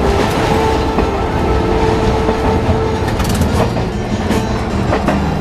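Streetcar running along street track, heard from aboard: a steady low rumble with a motor hum for the first three seconds, then the wheels clicking over the track several times near the end.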